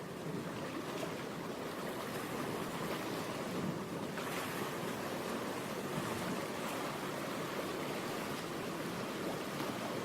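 Steady rushing noise of ocean surf, swelling slightly about four seconds in.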